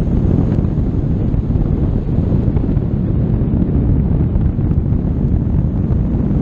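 Wind from the flight of a tandem paraglider blowing across the camera's microphone: a loud, steady low rumble whose level flutters.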